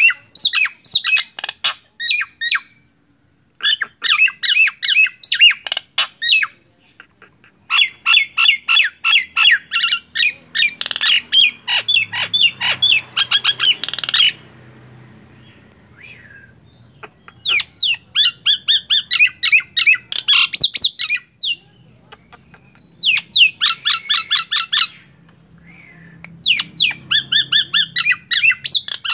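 Caged myna calling in fast runs of sharp, repeated squawking notes, about six bouts with short pauses between them.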